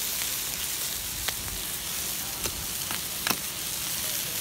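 Whole crabs sizzling on a barbecue grill: a steady frying hiss with about four sharp pops, the loudest about three seconds in.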